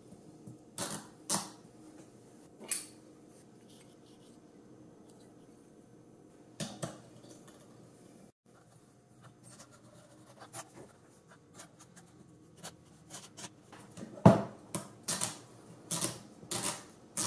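Handling noise of a camera lens being fitted into 3D-printed plastic mounting rings: scattered clicks, taps and rubbing of plastic parts, coming thicker and louder toward the end.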